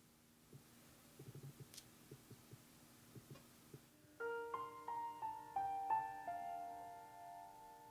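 Faint, irregular crackling as a crumbly rice-flour cookie is snapped in half. About four seconds in, louder solo piano music begins.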